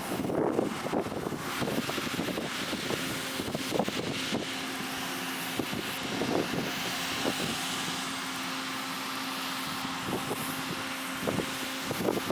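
Combine harvester running steadily during corn harvest: a steady mechanical hum under a wash of noise, with scattered short knocks and rattles.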